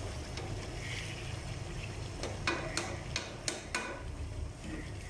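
Semolina halwa bubbling in a pot at the boil over a steady low rumble. A little past two seconds in, a spatula knocks and scrapes against the pot about five times in quick succession while stirring.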